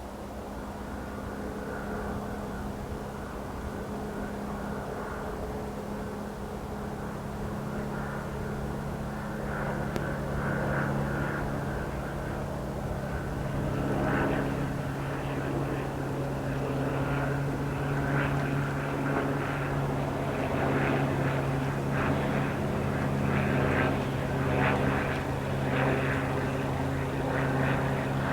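Propeller aircraft flying over, a steady low engine drone that gradually grows louder.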